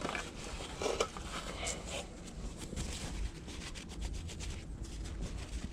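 Light rubbing and scraping with small clicks as the plastic parts of an instrument cluster and its new LCD display are handled.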